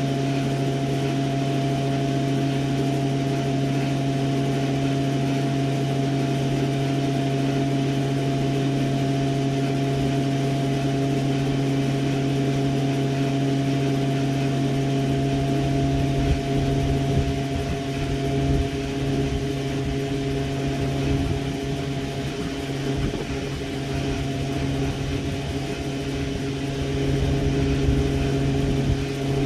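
A steady machine hum holding a few constant pitches. About halfway through, uneven low rumbles come and go beneath it.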